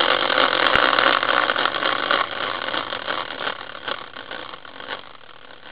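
Hand-spun caster-wheel prize spinner running down: a fast rattling whir that gradually fades as the wheel slows.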